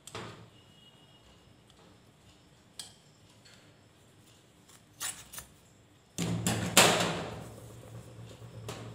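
Scissors cutting a piece of cloth: a few separate snips, then a louder stretch of cutting and cloth rustling from about six seconds in.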